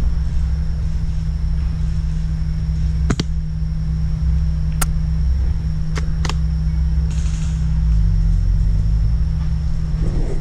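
Steady low rumble on an action camera's microphone, with four sharp clicks in the middle of it, the last two in quick succession.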